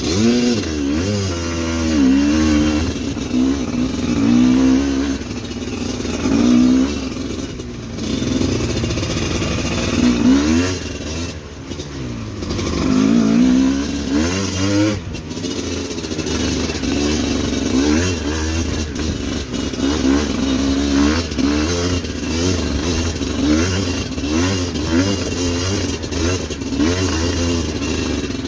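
Motorcycle engine revving up and down over and over, the throttle opened and eased repeatedly as it works up a slippery, rocky uphill trail.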